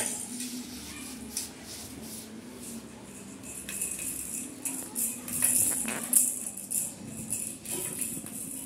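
Plastic baby rattles being shaken by hand, their beads rattling in irregular bursts, busiest about five to six seconds in.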